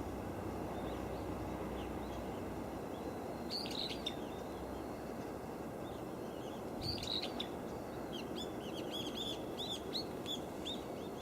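Small birds chirping: short high chirps in two brief bursts, then a rapid run of repeated chirps, several a second, over the last few seconds, against a steady low background noise.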